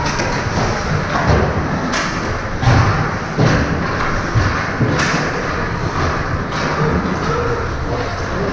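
Ice hockey play in an indoor rink: repeated dull thuds against the boards, with two sharp cracks of stick on puck about two and five seconds in, over the rink's steady din.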